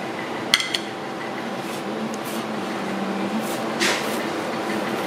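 A plate set down with a sharp clink about half a second in, then a knife rasping briefly through the crisp crust of deep-fried thick toast near the end, over a steady background hum.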